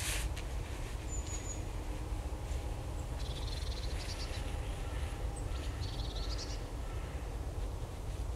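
Wild birds calling: two bursts of rapid chattering calls, about three and six seconds in, and a brief high whistle near one second, over a steady low rumble.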